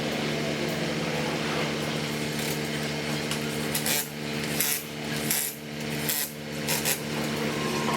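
Power tool, most likely a pneumatic impact wrench, running the wheel nuts onto the last new wheel of a Nissan GT-R in five or six short bursts starting about halfway through. A steady machine hum runs underneath.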